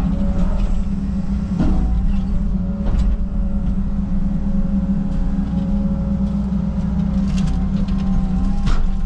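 Caterpillar 306 mini excavator's diesel engine running steadily, with a few sharp knocks.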